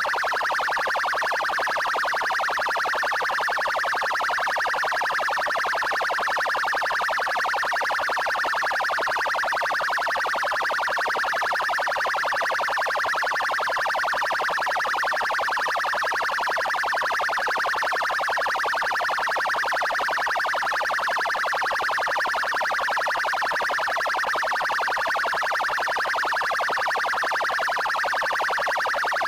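Electronic police siren sounding its 'trail' tone, as used by the Paraná Military Police in Curitiba. The sound is continuous and unchanging, with no rise or fall in pitch.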